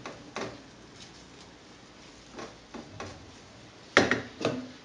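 Wooden spoon stirring onions in a frying pan, knocking and scraping against the pan: a few soft knocks, then two louder knocks close together about four seconds in.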